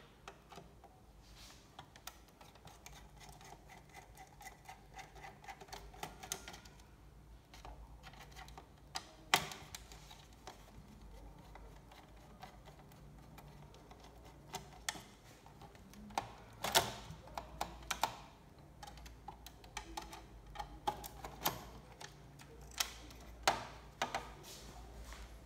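Scattered light clicks and taps of hands and a screwdriver taking the power supply board out of an opened LCD monitor, with a few sharper knocks; the loudest is about 17 seconds in.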